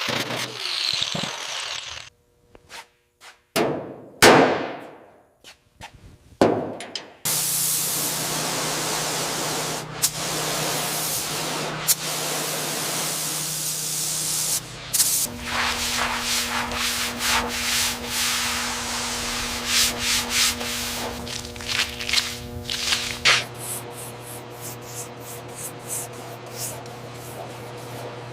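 Workshop tool sounds in quick edited cuts. First a falling whoosh, then a steady hiss for several seconds, then a machine running with a steady hum and repeated clicks and scrapes.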